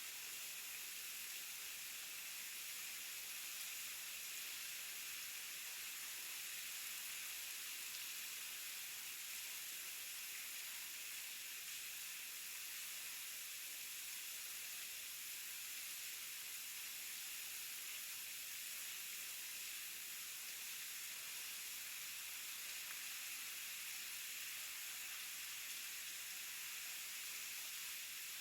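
Waterfall: a steady, unbroken rush of falling water, heard mostly as an even high hiss with little low rumble.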